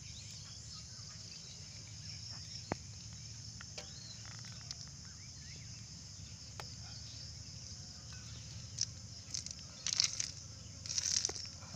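Steady high-pitched drone of insects, crickets or cicadas, over a low rural background hum, with a few faint clicks. Short scraping, rustling noises come in bursts near the end.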